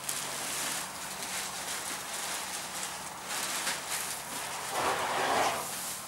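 Steady background noise in a tent stable with a faint low hum, and a louder noisy sound lasting about a second, about five seconds in.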